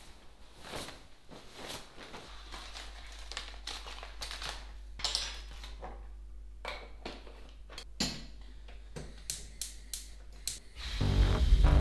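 Fabric rustling and a string of light clicks, knocks and clatters as small kitchen objects are handled on a countertop by a gas stove. Loud music comes in near the end.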